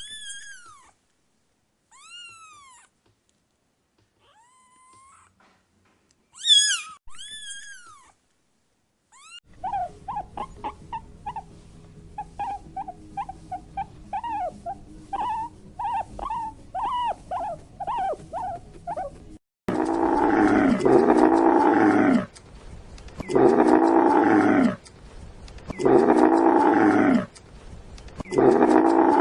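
Calls of several different animals, one kind after another. First come a few high, arching cries with gaps between them. Then a run of short, quick calls, one to two a second. From about twenty seconds in there are loud, long calls repeated every two to three seconds.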